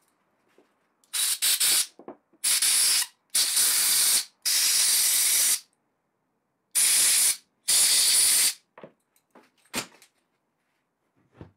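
Compressed-air blow gun giving about six short hissing blasts into the threads of a wing nut, blowing out water displacer and old gunge from threads that had been binding. A couple of light knocks follow near the end.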